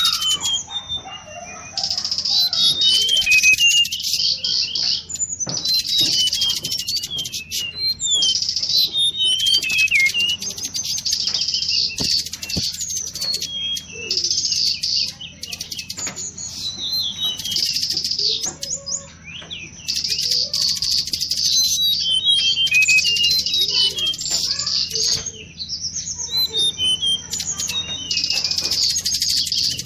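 Recorded lure song of the tledekan bakau: rapid high chirps and trills in phrases of a few seconds with short breaks between them, over a faint steady low hum.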